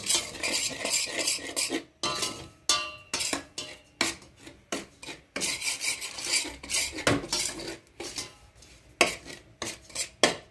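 A spoon stirring dry-roasting semolina in a stainless steel pot: repeated gritty scrapes against the pot, in uneven strokes with short pauses between them.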